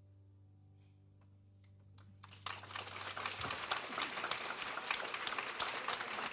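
A grand piano's last chord ringing faintly, then an audience breaking into applause about two and a half seconds in, a dense steady clapping that continues to the end.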